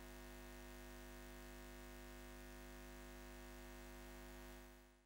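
Faint, steady low hum made of several fixed tones held together without change, fading out near the end.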